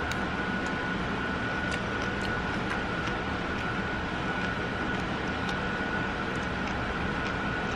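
Steady machine hum with a constant high whine running through it. A few faint light clinks of a metal spoon against a ceramic soup bowl sound over it.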